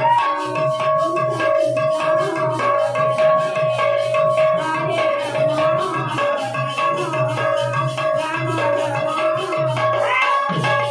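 Sambalpuri kirtan music: a steady held tone over drumming and fast, even strokes of rattling metallic percussion.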